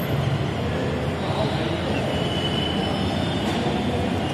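Steady outdoor background noise with indistinct crowd chatter.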